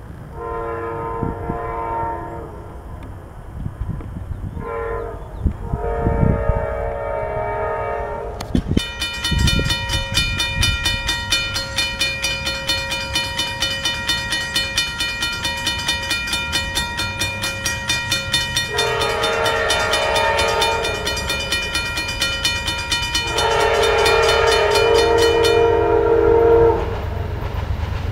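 Amtrak diesel locomotive horns sounding several long multi-note chord blasts as trains approach a grade crossing. From about a third of the way in, a crossing bell rings at an even pace of about two strokes a second beneath the horns.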